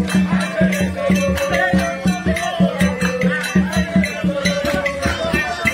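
Music with a quick, steady percussion beat over a held low note and a wavering melody line.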